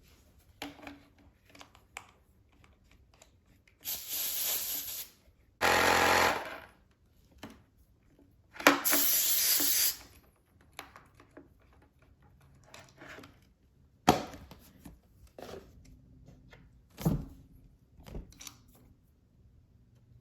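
Air inflator pumping a motorcycle-style inner tube in a 16 by 3 tire back up toward 32 psi, running in three short bursts of about a second each, with clicks and knocks of handling between them.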